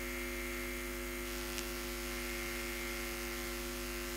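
Steady electrical mains hum with many evenly spaced overtones, unchanging throughout, with one faint tick about one and a half seconds in.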